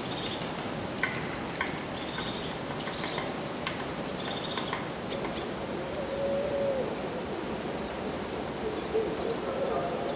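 Winter mountain ambience: a steady rushing haze with birds calling over it, short high buzzy calls and sharp chips in the first half, then a low call about six seconds in and a low call in short pulses near the end.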